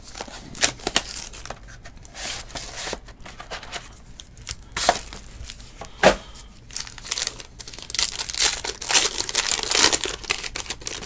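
Foil wrapper of a 2019 Origins Football trading-card pack being torn open and crinkled by hand: scattered rustles and sharp crackles, thickest near the end.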